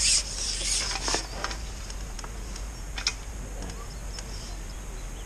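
A brief splash of water as a fish is drawn over a landing net, then a few light clicks and taps of fishing tackle.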